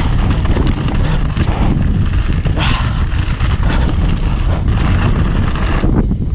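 Mountain bike tyres rolling fast over loose rocks and gravel, with wind buffeting the camera microphone: a loud, continuous rumble with irregular jolts.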